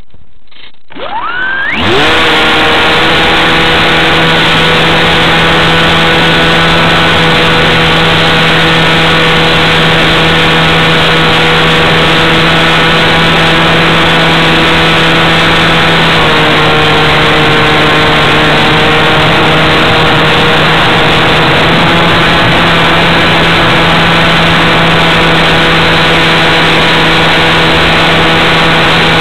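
Radio-controlled model airplane's motor and propeller, heard from on board. About a second and a half in it spools up with a quick rising whine to full throttle, then runs loud and steady in flight. Its pitch dips slightly a little past halfway and comes back up a few seconds later.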